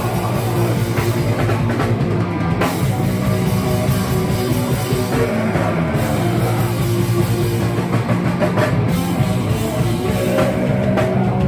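A live hardcore punk band playing loud: distorted electric bass and guitar over a drum kit.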